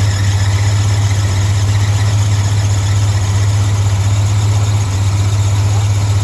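The engine of a 1977 Chevrolet Silverado pickup running steadily, a constant low hum.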